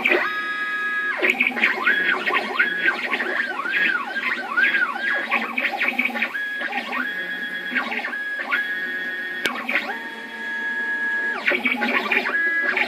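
Stepper motors of a small desktop CNC machine whining as they drive the pen head through its moves. The pitched whine holds steady on some stretches and rises and falls in quick arcs on others, with brief pauses between moves. A pen is fitted instead of a cutter, so no cutting noise.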